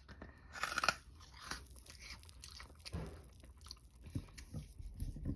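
A person eating crunchy food close to the microphone: a loud crunching bite about half a second in, then chewing with scattered smaller crunches.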